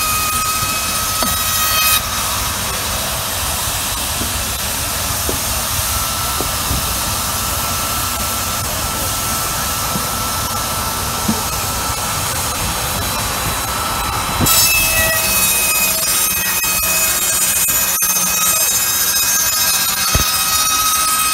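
Charles Powis steam-belt-driven circular saw bench: the spinning blade's steady whine changes about two seconds in to the noise of the blade cutting lengthwise through a timber plank. It holds for about twelve seconds, then the blade runs free again with its whine and a few knocks.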